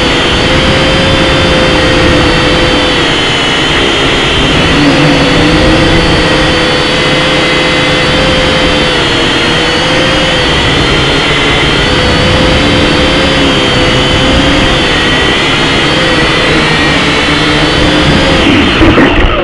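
Aircraft engine running steadily and loudly, a continuous rush of noise with whining tones that waver slightly in pitch. It cuts off abruptly right at the end.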